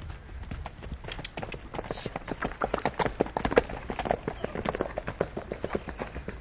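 Hoofbeats of two horses cantering on a gravel track, a quick uneven patter that grows louder as they pass close by, loudest in the middle, then eases off as they move away.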